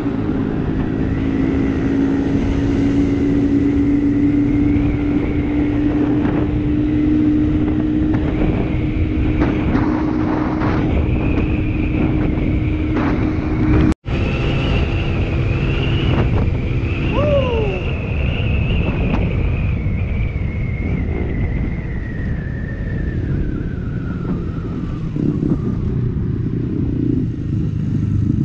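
Suzuki GSX-R 750's inline-four engine running at a steady cruise on the move, with wind noise, cut by a momentary drop-out about halfway; in the second half the engine note slowly falls.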